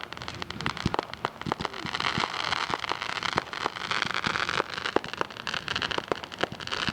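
Fireworks going off: a dense run of sharp pops and bangs over a steady crackling hiss that grows thicker about two seconds in.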